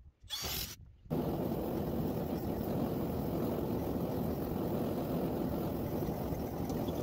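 Gas forge burner running with a steady rushing noise, starting about a second in.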